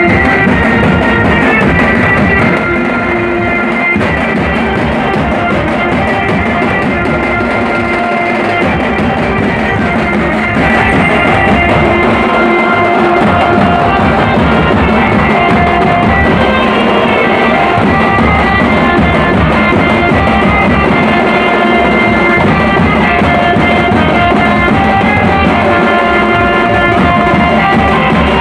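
Loud background music with guitar and drums.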